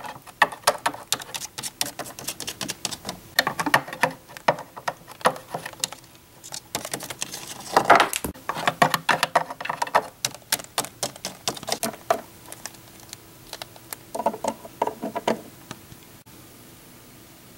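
Small plastic toy figurines tapped and hopped against a wooden dollhouse staircase and floor as make-believe footsteps. The taps come as rapid, irregular clicks, with a denser clatter about eight seconds in.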